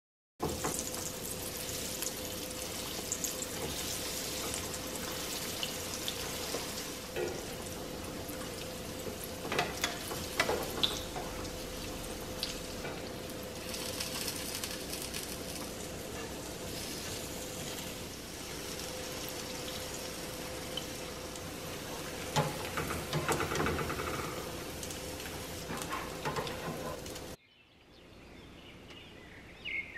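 Breaded potato cheese balls frying in shallow oil, a steady sizzle and crackle. A metal spoon clinks and scrapes in the pan now and then as the balls are turned. The frying cuts off abruptly near the end.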